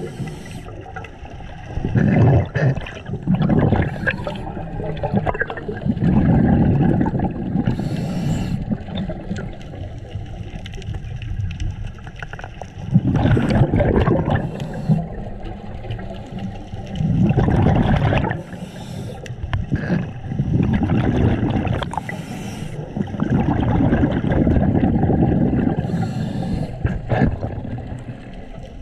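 Scuba diver breathing underwater through a regulator. Each breath in is a short hiss, and each breath out is a longer low rumble of bubbles. The cycle repeats every four seconds or so.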